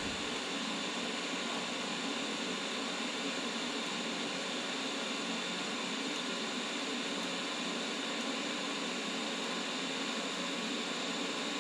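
TIG welding arc from a Vulcan Omnipro 220 torch fitted with a gas lens, burning with a steady, even hiss and no breaks.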